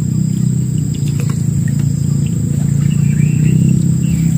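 A steady high-pitched insect drone from the riverside vegetation, over a louder steady low hum, with a few faint short chirps about three seconds in.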